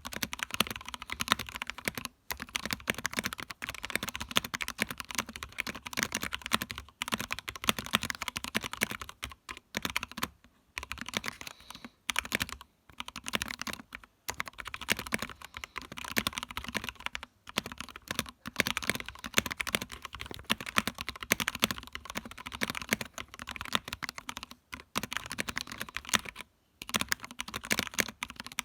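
Fast, continuous typing on a custom mechanical keyboard: Gateron Yellow linear switches in a TOFU64 aluminium case. Rapid key clacks come in runs with brief pauses between them.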